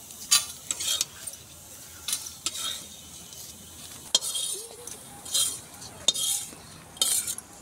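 Metal spatula scraping around a metal kadhai and tipping fried dough strands onto a metal plate: a series of short scrapes with a few sharp clinks, over the faint sizzle of hot frying oil.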